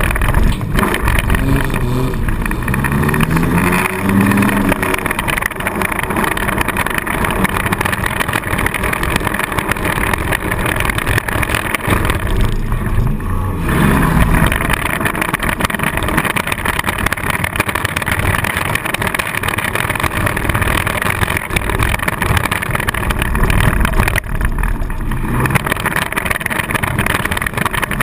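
Four-cylinder demolition derby car's engine heard from inside the car, revving hard with the pitch climbing and falling as the throttle is worked, over loud continuous rattle and road noise.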